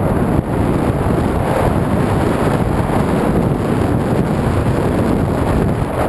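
Steady wind noise buffeting the microphone of a skier moving downhill, mixed with skis sliding over snow.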